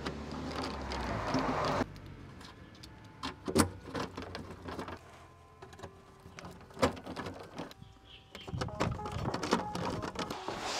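Hand ratchet driver with an 8 mm hex socket clicking in bursts as the transmission cover screws are run back in. There are a few sharp metallic knocks of the tool against the underbody.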